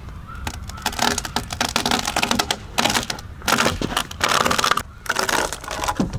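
Dry brush crackling and snapping: leaves and twigs rustling and breaking in quick, irregular clusters as cut branches are handled.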